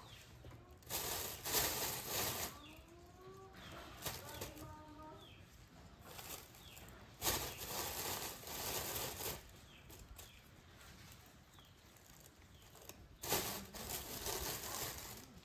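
Plastic shopping bags rustling and crinkling in three bursts as vegetables are pulled out of them.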